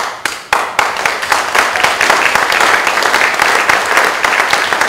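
Audience applause: a few separate claps at first, filling out within about a second into steady, dense clapping.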